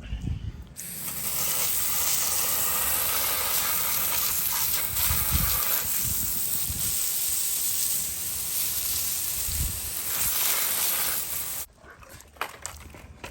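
Pressure washer spraying a jet of water onto plastic-coated dishwasher racks, a steady loud hiss that starts about a second in and cuts off suddenly near the end, blasting out trapped grime.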